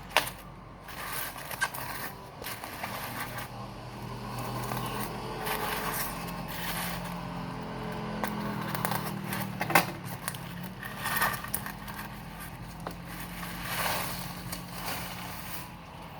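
Packaging being handled: scattered crackles, scrapes and sharp clicks of plastic wrap, over a steady low engine hum.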